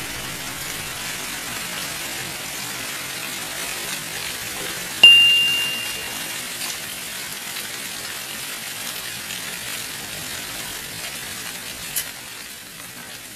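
Heavy hail and rain falling, a steady hiss. About five seconds in there is a single loud strike that rings for about a second like a struck bell. A smaller sharp tap comes near the end.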